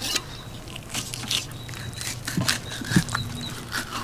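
Thin, flexible fillet knife cutting through a redfish, a run of short crunching and scraping strokes as the blade works the fillet off the carcass.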